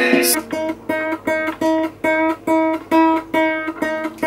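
Classical nylon-string guitar: one string plucked over and over, about four times a second, while the tuning peg is turned to bring the string up to pitch.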